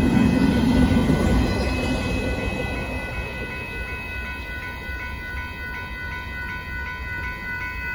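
Union Pacific intermodal freight train rumbling past a road crossing, its noise fading over the first few seconds. Over it, the crossing's warning bell rings steadily in a regular repeating pattern.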